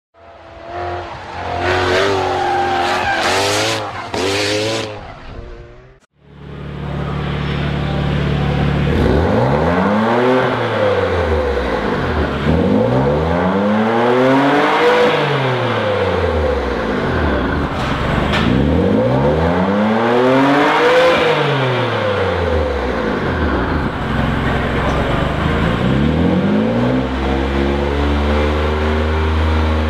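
2015 BMW M4 F82's twin-turbo inline-six running through a Fabspeed Valvetronic exhaust with the valves closed; its pitch slowly rises and falls, then holds steady at 3000 rpm near the end. A few seconds of separate sound open it and cut off abruptly about six seconds in.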